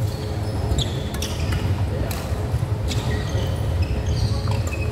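Badminton rally: sharp racket-on-shuttlecock hits about a second apart and short high squeaks of shoes on the court floor, over a steady low hall rumble.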